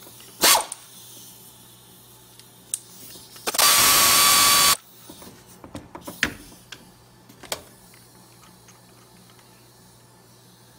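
Pneumatic air ratchet running in one burst of about a second with a steady whine, spinning out a spark plug. A few sharp clicks of metal tools come before and after it.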